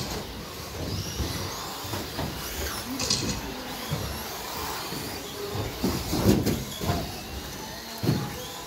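Electric RC stadium trucks with 13.5-turn brushless motors racing on a carpet track: the motors whine up and down in pitch as the trucks speed up and brake, over tyre noise. A few sharp knocks about six to seven seconds in.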